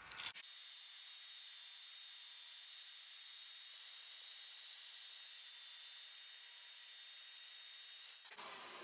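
Ryobi compact router with a quarter-inch straight bit running steadily while cutting a hinge-knuckle mortise in plywood, heard as a steady hiss-like whine. It stops near the end.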